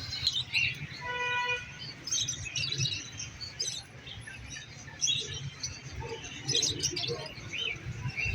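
Many small birds chirping and tweeting together, the dense chatter of caged birds at a bird market, over a low steady rumble. A short held tone sounds about a second in.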